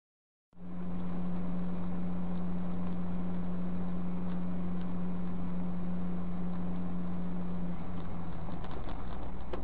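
A car's engine hum and tyre and road noise while driving on a highway, heard from inside the car through a dash camera. It starts abruptly about half a second in, then runs steadily with a strong low hum that fades near the end.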